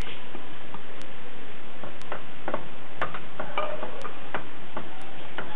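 Wooden spoon stirring thick pea soup in a metal pot, with irregular knocks and scrapes against the pot, loudest in the middle. A faint sharp tick sounds once a second throughout.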